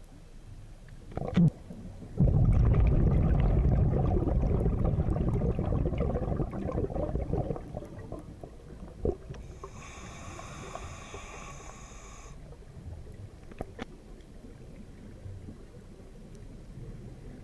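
Scuba regulator underwater: a loud, rough rumble of exhaled bubbles lasting about five seconds, then a few seconds later a shorter hissing inhalation with a steady tone through it. A sharp click comes just before the bubbles.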